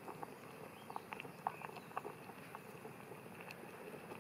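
Pot of oatmeal simmering on a canister stove turned down low, making faint, irregular small bubbling pops.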